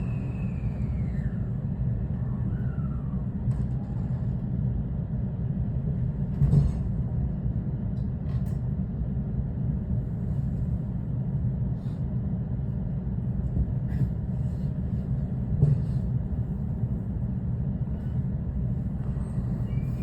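Steady low rumble of a 223 series electric train creeping forward at low speed during coupling, heard from inside the car. Just after the start a motor whine slides down in pitch and fades. Two short knocks come, one about six seconds in and one near the end.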